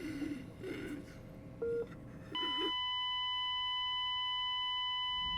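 Hospital heart monitor giving one beep, then about two seconds in switching to a continuous steady tone: the flatline alarm that signals the patient's heart has stopped.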